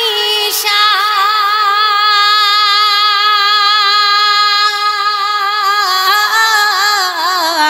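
A woman singing a Bengali Islamic gojol, drawing out one long ornamented note whose pitch wavers and then dips lower near the end.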